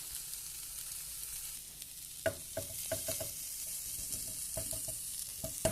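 Scallops searing in butter in a hot pan, sizzling steadily, with a cooking utensil clicking and tapping against the pan many times from about two seconds in.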